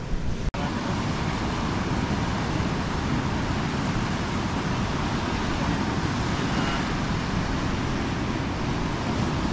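Steady wind noise on the microphone over surf on the beach, cutting out briefly about half a second in.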